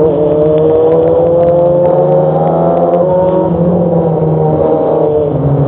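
Motorcycle engine accelerating hard through the gears with quickshifter upshifts: the pitch climbs steadily in each gear and drops sharply at each clutchless shift, about three and a half seconds in and again near the end.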